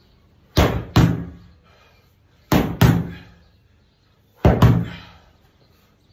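Sledgehammer striking a large rubber tractor tire: three heavy double thuds, one pair about every two seconds, each blow ringing briefly in the room.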